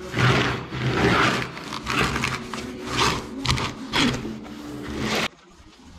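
Small foam paint roller being rolled back and forth over planed pine shiplap, spreading clear polyurethane, a swishing scrape about once a second. It stops abruptly about five seconds in.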